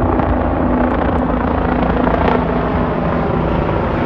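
A formation of helicopters flying low overhead: a loud, steady rotor chop over a low engine drone.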